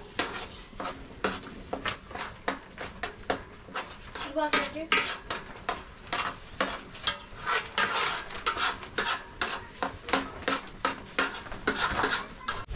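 A utensil stirring and scraping in a metal pot, with quick, irregular clinks and scrapes.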